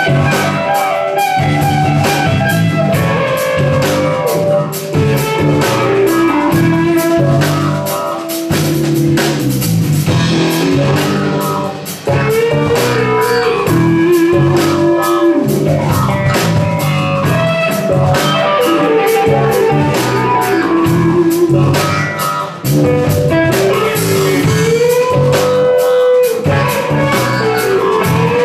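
Rock band playing live: an electric guitar lead with long held, bending notes over a steady drum-kit beat.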